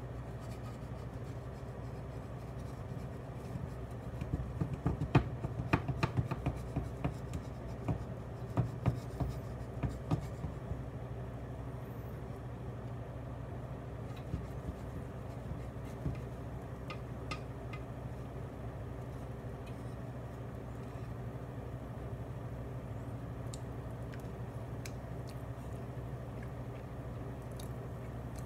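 Light clicks, taps and scrapes of kitchen utensils, bunched together for several seconds starting a few seconds in, then only now and then, over a steady low hum.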